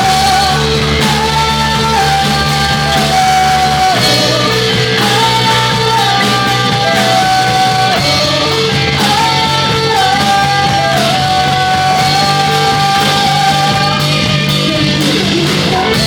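Live rock band playing a song at full volume, with a melody line of held notes moving in steps over a steady bass and drums.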